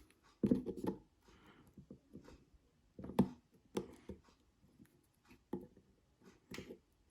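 Irregular small clicks and knocks of a Ring Doorbell Pro's plastic housing being handled and pried apart by hand.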